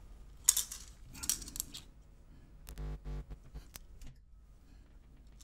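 Light clicks and clatter of a circuit board and small metal parts being handled and set down on a workbench, in scattered taps and short clusters.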